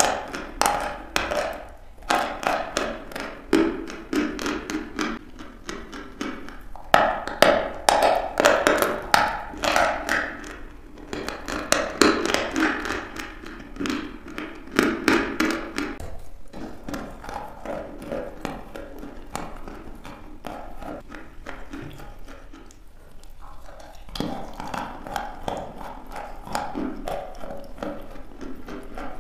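Close-miked biting and chewing of a block of white chalk: crisp crunches in dense bursts, with softer, pasty chewing as the chalk turns wet in the mouth. The crunching is heaviest in the first half, eases off for a stretch past the middle, and picks up again near the end.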